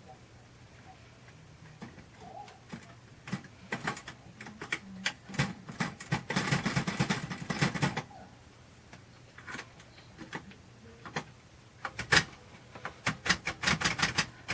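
Royal manual typewriter keys being struck, sharp clacks of the typebars. Scattered single strokes, with a fast run of typing midway and another starting near the end.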